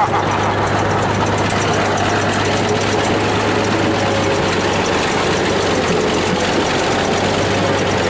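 Bulldozer's diesel engine running steadily with a dense mechanical clatter.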